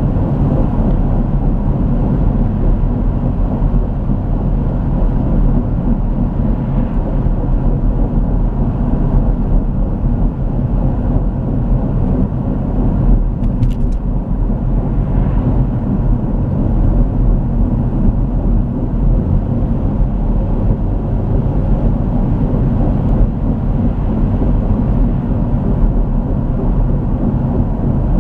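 Van driving at a steady road speed with a worn wheel bearing, a continuous grinding noise under the road and engine sound.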